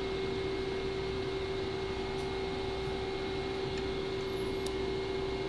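CNC lathe running with flood coolant spraying onto the spinning part as the tool makes its knurl-cutting passes: a steady hum and a fainter high whine over an even hiss of coolant.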